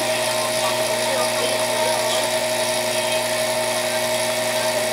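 A small electric motor in a kitchen appliance runs with a steady, even-pitched whine. It does not change speed.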